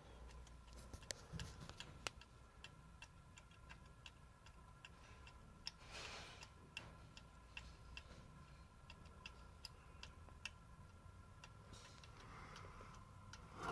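Faint, irregular ticks of water dripping from a leaking water heater, with a faint steady hum underneath.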